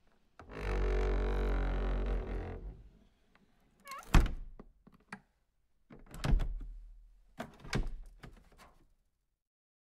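Heavy metal thunks of steel shoe moulds being handled and shut, three loud ones a couple of seconds apart, each with a short ring. Before them comes a couple of seconds of steady machine noise with a low hum.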